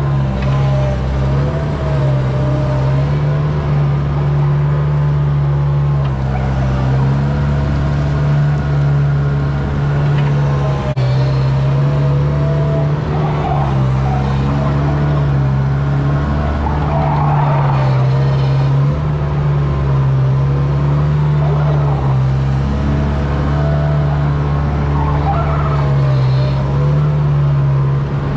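Bobcat 642B skid-steer loader's engine running steadily under load, heard from the cab, its pitch shifting slightly as it works. At a few points, about halfway through and again near the end, there are short scraping, squealing noises as the scraper blade drags manure along the concrete.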